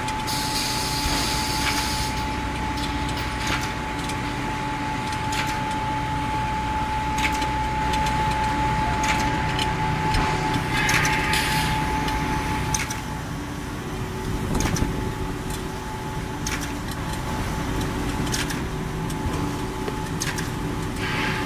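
Industrial band saw paper roll cutting machine running: a steady high whine over a low hum, with scattered clicks and knocks. Two short bursts of hiss come about halfway through and near the end.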